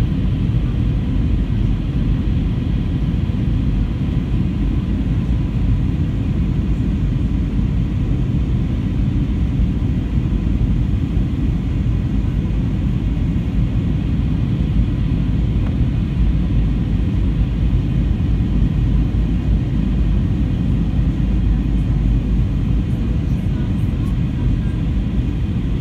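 Steady low rumble of engines and airflow inside the passenger cabin of an Airbus A321 in descent, with faint steady tones above it.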